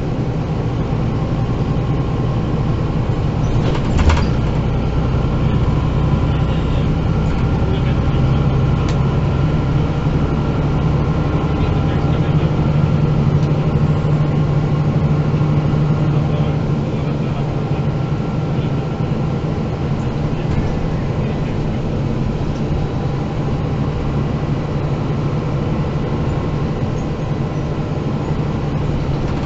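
Diesel engine of a MAN NG 313 articulated city bus running under way, heard from inside the passenger cabin as a steady low drone that grows louder for a few seconds around the middle. A single sharp knock comes about four seconds in.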